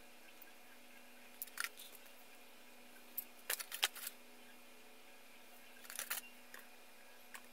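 Plastic model-kit runners clicking and clattering against each other and the tile floor as they are handled, in a few short bursts of clicks, the loudest about halfway through.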